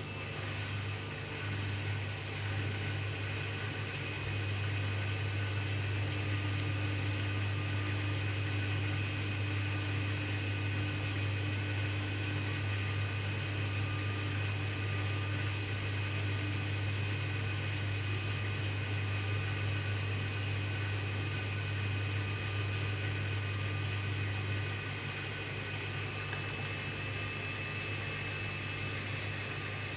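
Hoover washing machine in a calm interim spin: the drum motor runs with a steady hum and a high whine, lifting slightly about four seconds in and easing a little near the end.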